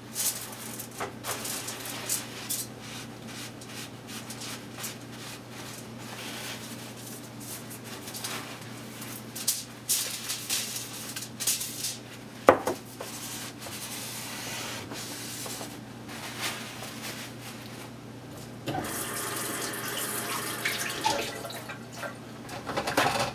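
Paper towel rubbing and rustling against a glass mason jar as it is wiped dry of spilled lamp oil, with one sharp knock about halfway through. Near the end, a tap runs into a kitchen sink for a few seconds as hands are washed.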